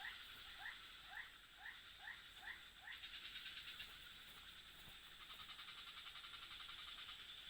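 A frog calling faintly, a series of about seven short rising notes at roughly two a second that stops about three seconds in, over a steady high-pitched chorus of night animals.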